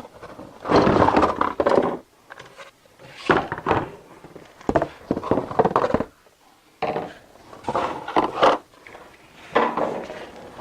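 Hard plastic parts of a bagless upright vacuum, likely its dust canister, being handled: about five short bouts of thunks and clattering knocks, with pauses between them.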